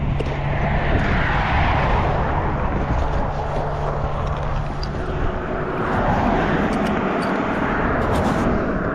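Road traffic: vehicles passing, one swelling about a second in and another around six seconds.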